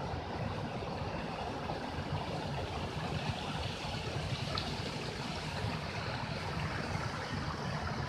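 Steady, even rushing outdoor ambience with no distinct events, the kind made by flowing water or wind through trees.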